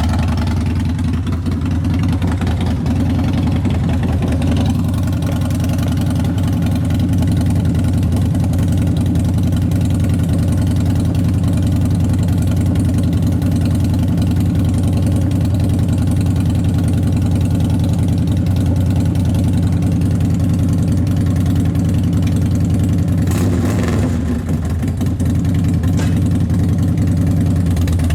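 2006 Harley-Davidson Dyna Street Bob's 96-cubic-inch V-twin idling steadily, just after being started. The engine note dips briefly about 24 seconds in, then settles back to the same idle.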